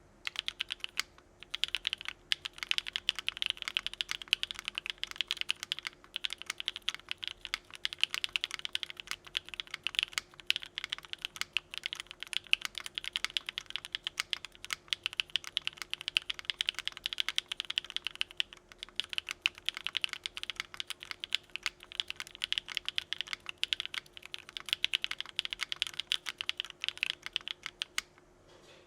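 Fast, continuous typing on a mechanical keyboard fitted with lubed Gateron Modern Grey linear switches on an aluminium plate, with no foam or dampening. It is a dense run of crisp keystroke clacks with a few brief pauses, and the typing stops near the end.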